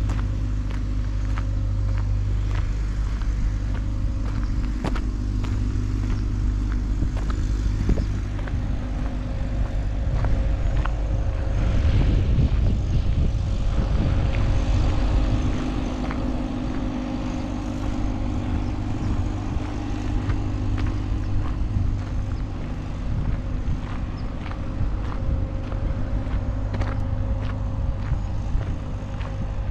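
Footsteps crunching on a gravel path at a steady walking pace, about one step a second, over a continuous low rumble that swells for a few seconds near the middle.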